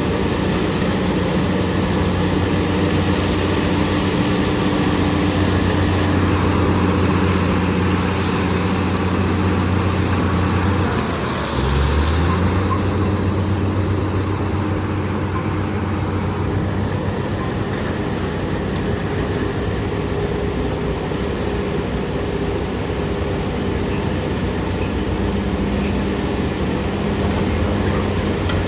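BEML BD355 crawler bulldozer's diesel engine running steadily under load. A little over ten seconds in, the engine note drops briefly and then picks back up.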